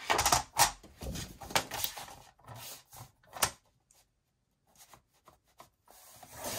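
Cardstock being handled and lined up in a sliding rail paper trimmer: rustling and sharp clicks, one louder click about three and a half seconds in. After a brief near-quiet, a scraping hiss begins near the end as the trimmer's blade starts through the card.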